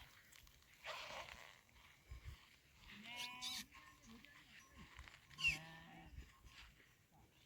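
Faint bleating from farm animals: two wavering calls, about three and five and a half seconds in.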